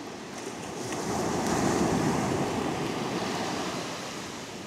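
Sea surf breaking and washing on the beach: a rushing wave sound that swells about a second in and slowly fades.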